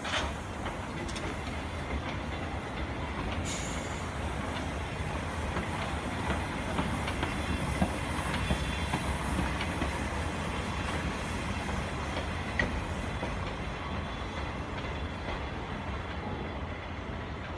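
C58-class steam locomotive C58 239 running light at low speed past and away, a steady low rumble of the engine rolling on the rails with occasional sharp clicks.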